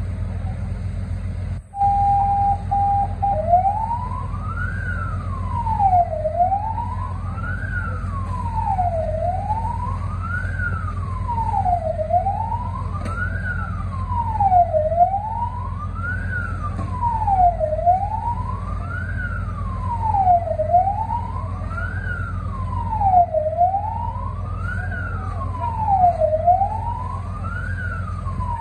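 Fire engine siren: a brief steady tone about two seconds in, then a wail rising and falling about once every three seconds, over the steady low rumble of an idling engine.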